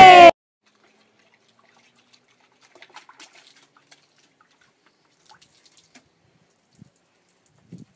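Faint water sounds from a small child dipping a cloth into a plastic bucket of water and wiping a car: small splashes and drips, followed by a few soft low thumps near the end.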